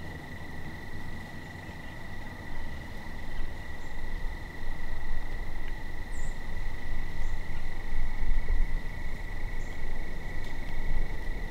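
Evening chorus of insects trilling in one steady, unbroken high note, under a low rumble on the microphone that grows louder from about four seconds in.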